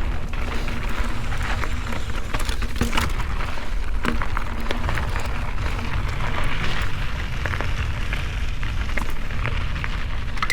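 Mountain bike rolling over a rough dirt and rock trail: tyres crunching on gravel and the bike rattling with many sharp clicks over bumps, over a low, steady rumble.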